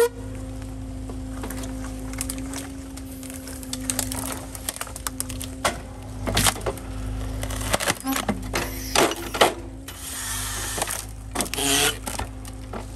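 Hydraulic accumulator tree-shear head on an excavator cutting small trees at the base: wood cracking and splintering several times over the steady drone of the excavator and its hydraulics.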